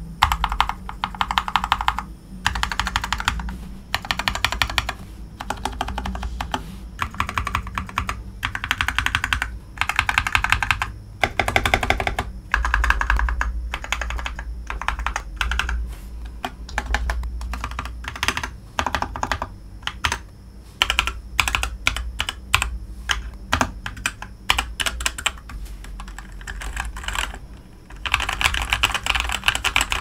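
Typing on a GK61 60% mechanical keyboard fitted with KTT Grapefruit linear switches: fast bursts of keystrokes clacking, with a stretch of slower, separate key presses in the second half, then fast typing again near the end.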